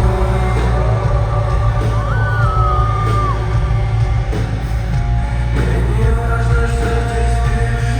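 Live rock band playing loud, with heavy bass and sustained guitar or keyboard chords; a sung or yelled vocal line slides up and then down about two seconds in.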